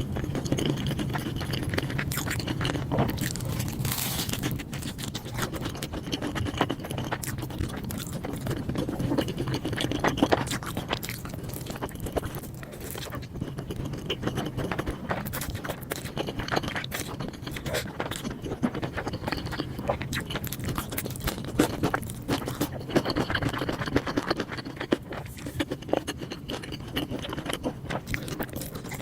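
Close-miked ASMR eating: chewing, with many short crunches and clicks following one another throughout.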